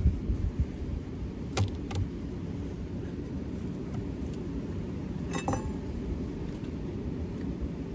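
Wind rumbling on the microphone, with a few light clicks and clinks from hive frames being handled: two at about a second and a half in, then a small cluster a little past five seconds.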